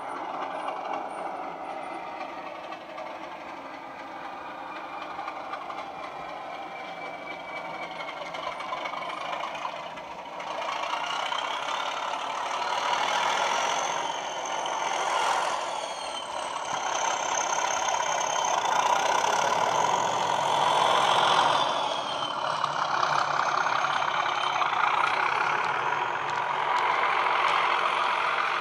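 Class 37 diesel locomotive sound (English Electric engine with turbocharger whine) played by a model locomotive's DCC sound decoder through its small on-board speakers. It grows louder about ten seconds in, then the engine and turbo whine surge up and drop back twice as the decoder simulates wheel slip.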